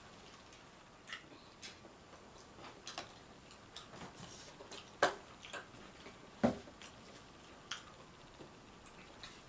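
Eating sounds: irregular wet mouth clicks and smacks while chewing, with two louder sharp clicks about halfway through.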